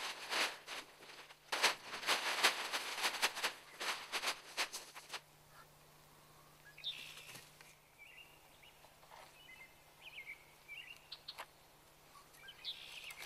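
A plastic tarpaulin crinkling and rustling as it is shaken out and spread on the ground, for about the first five seconds. After that it goes quiet except for faint bird chirps.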